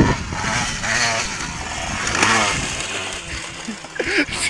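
A dirt bike's small single-cylinder engine runs and revs as the bike is ridden, its pitch rising and falling.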